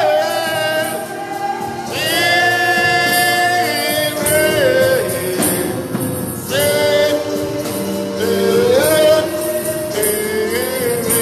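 Worship singing with voices holding long, gliding notes over instrumental backing.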